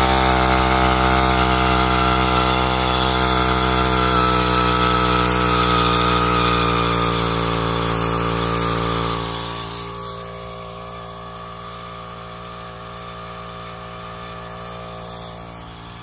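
Komatsu G260 two-stroke brushcutter engine running steadily at high throttle, under load from the 90 mm lift pump it drives through a gearbox. About nine seconds in it turns quieter and more distant while its pitch stays the same.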